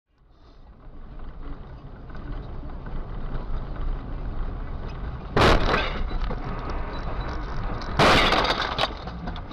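Steady road noise from a moving car, broken by two loud crash impacts about two and a half seconds apart. The second impact is the longer, with several crunches over nearly a second: a vehicle collision.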